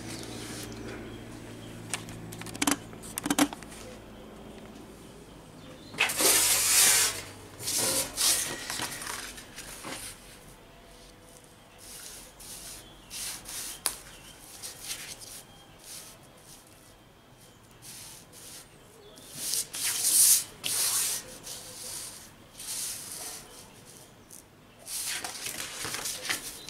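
Pattern pieces slid and rubbed across a flat sheet of 16-gauge steel in irregular scraping swishes, with a few light clicks and taps on the sheet.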